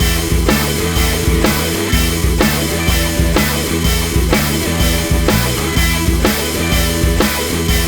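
Background rock music with a steady drum beat, about two beats a second, and guitar.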